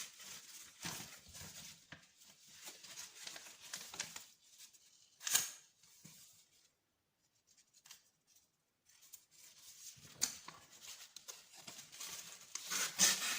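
A freshly sharpened knife being tested by cutting, heard as rasping, tearing strokes in two spells with a sharp snap about five seconds in.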